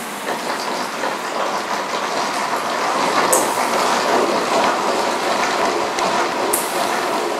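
Noise-based electronic soundscape from the performance's score: a dense, steady rushing noise, with a brief high hiss about every three seconds.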